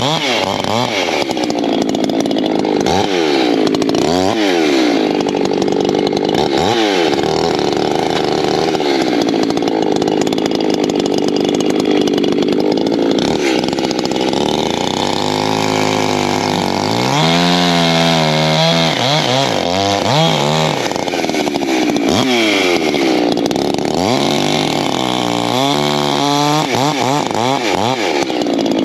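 Two-stroke Echo chainsaw cutting firewood: held at full throttle through the cuts, dropping back toward idle and revving up again several times between them, with a long steady stretch at full revs in the middle.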